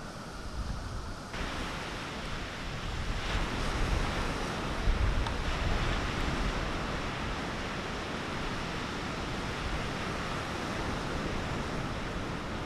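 Sea surf washing ashore, with wind rumbling on the microphone; the hiss of the wash rises suddenly about a second in and stays up.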